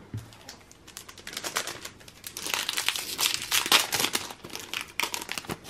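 Foil Yu-Gi-Oh! booster pack wrapper crinkling as it is picked up and handled, then torn open, with a dense crackle that is busiest in the middle.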